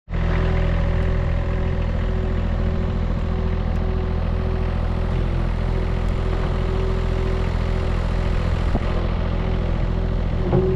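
Bobcat S70 skid steer's three-cylinder diesel engine idling steadily. A tone pulses on and off about twice a second over the engine sound.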